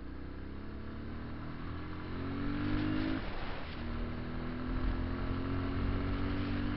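Motorcycle engine accelerating through the gears: its pitch climbs, drops briefly at a gear change about three seconds in, then climbs again. A low wind rumble runs underneath.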